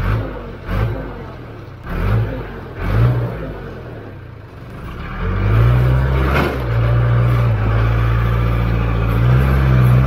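Diesel engine of heavy farm equipment revving in short bursts, four times in the first three seconds, then running steadily and loud from about five seconds in, with a single knock about six and a half seconds in.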